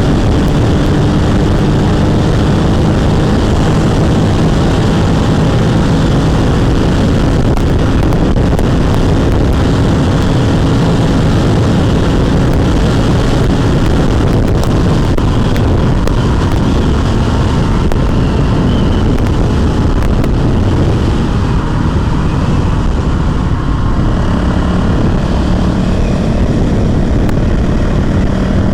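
Honda CRF450L's single-cylinder four-stroke engine running under way, with wind rushing over the microphone. The engine's pitch shifts as the throttle changes, and it eases off briefly about three-quarters of the way through.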